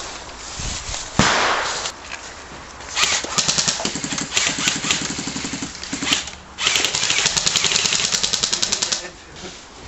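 Airsoft electric guns firing on full auto in two long, rapid rattling bursts, one starting about three seconds in and another just after six seconds, stopping near the end. A sudden loud noise comes about a second in.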